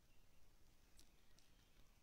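Near silence: a faint even hiss with two faint, sharp clicks about a second in.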